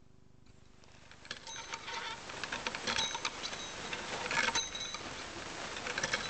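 A homemade kinetic object's wire-and-wood mechanism clattering and clicking unevenly, with a small hanging bell ringing briefly a few times. It starts about a second in, after near silence.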